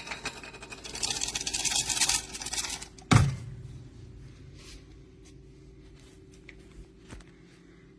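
Hands handling the small portable burr coffee grinder: about two seconds of rasping, scraping noise, then one sharp knock about three seconds in, followed by a few faint clicks.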